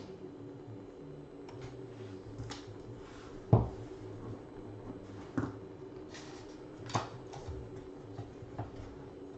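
Handling of trading cards and their box packaging: a few light knocks and clicks, the loudest about three and a half seconds in, over a steady low hum.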